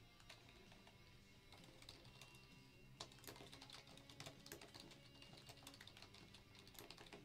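Faint typing on a computer keyboard: quick key clicks that start about a second and a half in and come thick and fast from about three seconds in. Quiet background music plays underneath.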